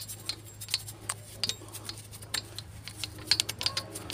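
Irregular light clicks and taps of hand tools on metal at the dusty rear drum brake being cleaned, over a steady low hum.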